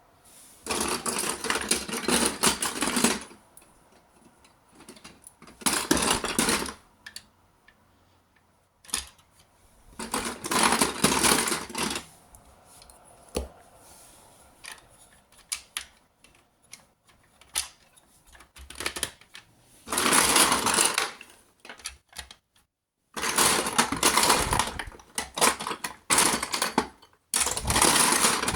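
Glass marbles rattling and clicking down a marble run track in repeated bursts of one to three seconds, with single clicks and taps in the gaps between runs.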